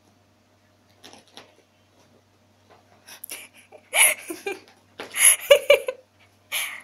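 A person laughing in short, breathy bursts, loudest about four and five seconds in.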